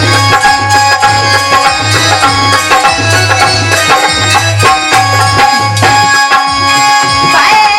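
Instrumental Indian folk music in the Alha style: hand drums keep a steady beat under a sustained melody line, with a rising note near the end.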